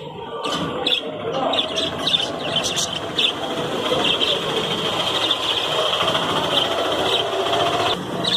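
Caged small parrots (parakeets) chattering. Many quick high chirps run together into an unbroken warble through the middle.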